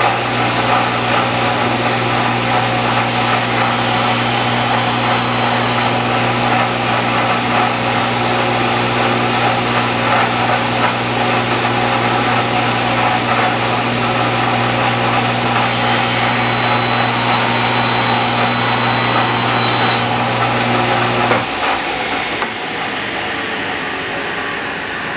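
Woodworking power tool running steadily while cutting a 45-degree chamfer in cherry, with two brighter cutting passes, one a few seconds in and a longer one from about 15 to 20 seconds. The motor switches off about 21 seconds in and winds down.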